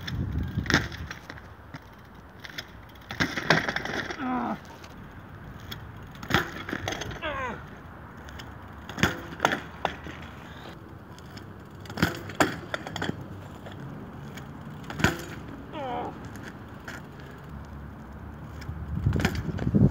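A 26-inch mountain bike clattering down onto asphalt over and over as barspin attempts fail: a sharp knock of frame, wheels and chain every few seconds, some of them doubled.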